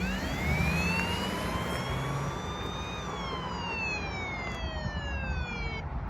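A siren wailing once: the pitch climbs slowly for about three seconds, then falls for about three more, over a low steady rumble.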